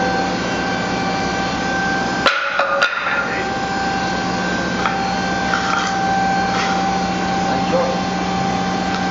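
Burgmeister Powerhawk CNC mill, powered up, giving off a steady hum with a constant whine. About two seconds in come two sharp clunks half a second apart, followed later by a few light clicks.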